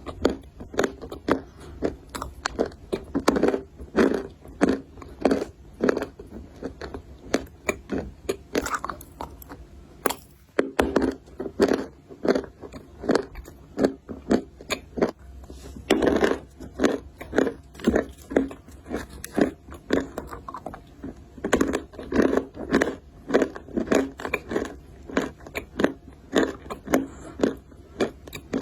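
Close-miked biting and chewing of dry, brittle clay (loess): rapid crunches, several a second, with a brief pause about ten seconds in.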